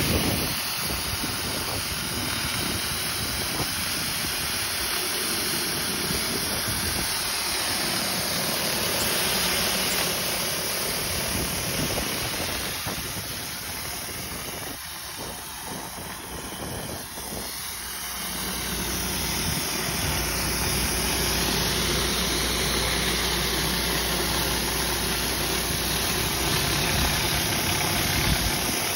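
Wheeled rotary surface cleaner on a pressure-washer hose, its spinning water jets hissing steadily against concrete, with the pressure washer's engine running underneath. The sound dips for a few seconds about halfway through, then comes back steady.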